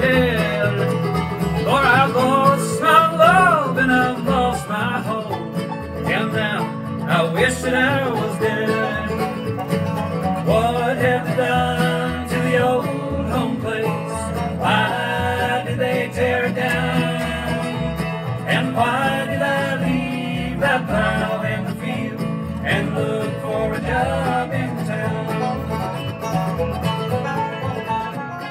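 Acoustic bluegrass band playing an instrumental break: banjo and guitar picking over a walking upright bass, with no singing.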